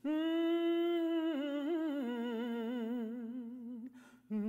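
One voice humming a long wordless note, held steady for about a second, then stepping lower and wavering with a wide vibrato. It breaks off near the end, and a new, lower note starts just after.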